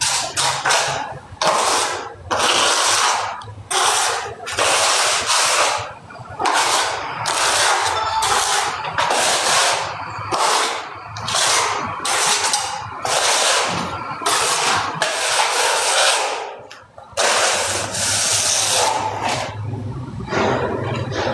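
Repeated harsh scraping strokes, roughly one a second.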